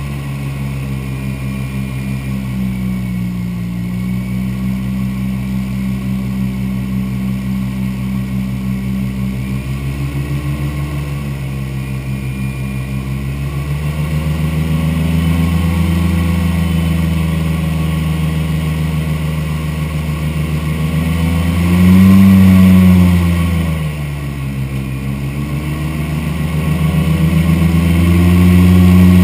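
Airboat's engine and big air propeller running at speed, a loud drone that rises and falls in pitch with the throttle. It surges loudest about three-quarters of the way through and climbs again near the end.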